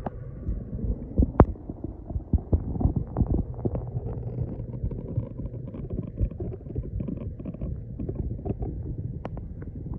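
Muffled low rumble from a phone's microphone held underwater in a reef aquarium, with scattered short clicks and knocks.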